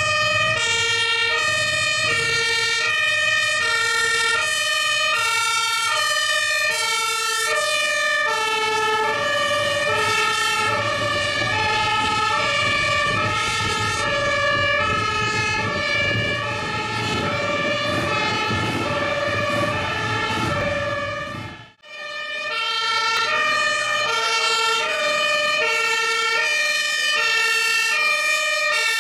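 German two-tone emergency vehicle siren (Martinshorn, "tatütata") switching steadily between a high and a low note about every two-thirds of a second, with a vehicle engine running underneath. It cuts off abruptly about 22 seconds in and starts again a moment later.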